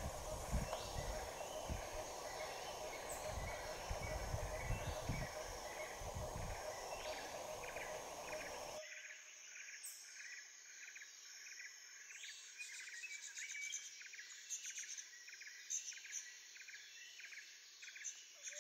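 Bush ambience: insects droning steadily and a short chirp repeating about twice a second. Wind buffets the microphone with a low rumble that cuts off about nine seconds in, leaving only the insects and chirps.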